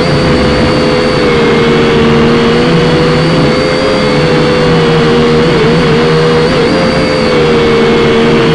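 Syma X5C quadcopter's small electric motors and propellers whining steadily, picked up very close by the drone's own onboard camera microphone. The pitch wavers slightly and dips briefly a couple of times in the second half.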